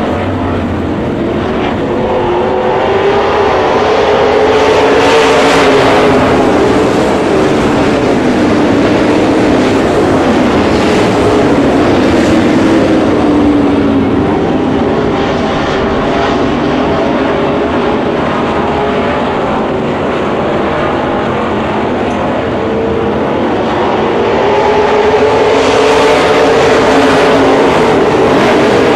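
A pack of USRA B-Modified dirt-track race cars at racing speed, their V8 engines rising and falling in pitch as the field circles the oval. The sound swells as the pack passes about five seconds in and again near the end.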